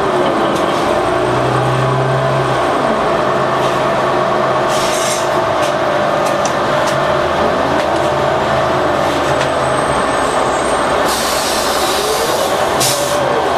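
A 2011 New Flyer Xcelsior XD40 city bus under way, its Cummins ISL9 diesel and Allison transmission whining up and down in pitch as it slows and pulls away. Short bursts of air-brake hiss come about five seconds in and again near the end.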